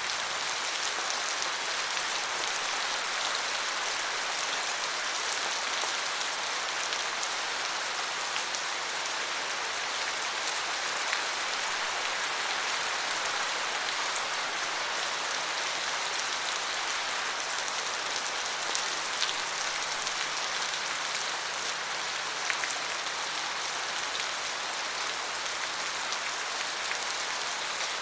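Steady rain falling and pattering on a surface, an even hiss with many fine drop ticks. A faint low hum joins in about two-thirds of the way through.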